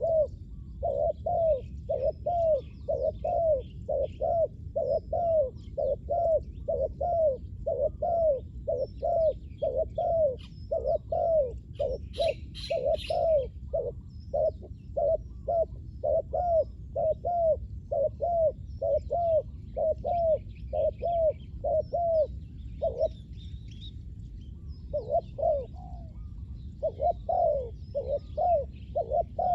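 Spotted dove cooing: a long run of short, repeated low coos, about one and a half a second, pausing briefly about three-quarters of the way through. Faint chirps of small birds sound above it.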